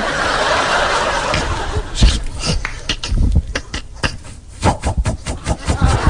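A man making vocal sound effects into a microphone: a hissing, rushing noise for about two seconds, then a run of mouth clicks and pops that come faster near the end.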